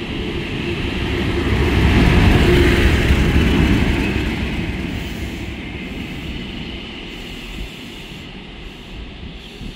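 Class 50 diesel locomotive, English Electric V16 engine, passing close with its engine rumble swelling to its loudest about two to four seconds in, followed by the Mk3 sleeper coaches rolling by on the rails. The sound fades steadily as the train draws away.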